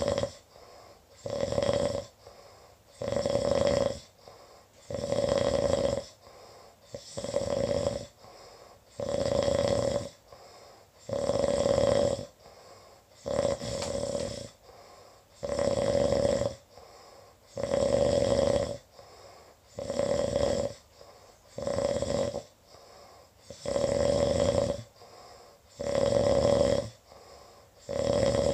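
Snoring in a steady rhythm: a loud snore about every two seconds, with quiet gaps between.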